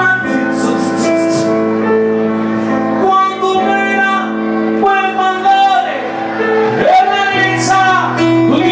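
Amplified singing over backing music: a man sings a comic song through a handheld microphone, holding long notes between bending phrases.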